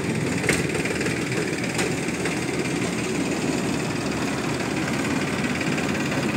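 Diesel tractor engine running steadily, with two sharp clicks about half a second and two seconds in.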